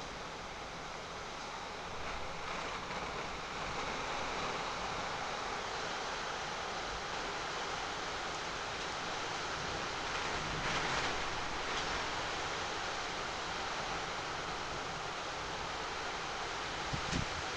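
Steady rain falling, an even hiss that swells briefly about eleven seconds in, with a short thump near the end.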